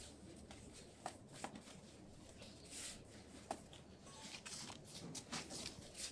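Gloved hands raking and pressing coarse salt in a plastic basin to salt mullet roe: faint, irregular rustling and crunching of salt grains with small clicks.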